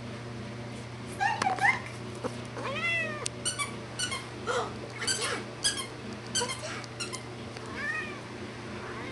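Young tabby cat meowing several times, each call rising and falling in pitch, with a quick run of short high squeaks in the middle.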